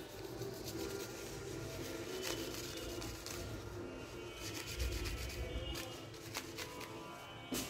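A tissue rubbing and wiping over a TV remote's circuit board with cleaning liquid, with scraping and small clicks of handling.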